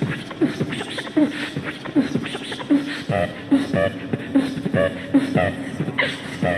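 Human beatboxing: a steady rhythm of mouth-made kick and snare sounds with short falling bass tones. From about three seconds in, pitched vocal notes join the beat.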